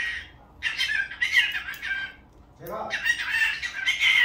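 Cockatiel chattering in a warbling, speech-like voice, in two bouts of about a second and a half each with a short pause between.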